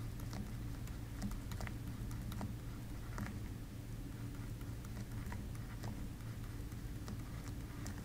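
Faint, scattered light taps and scratches of a stylus on a pen tablet during handwriting, over a steady low hum.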